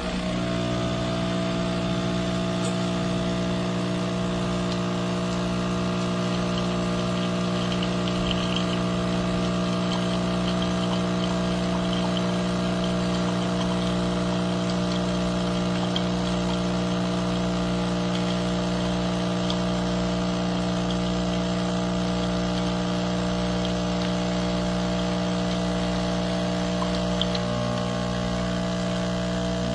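De'Longhi Stilosa espresso machine's 15-bar pump running with a steady buzzing hum that starts abruptly.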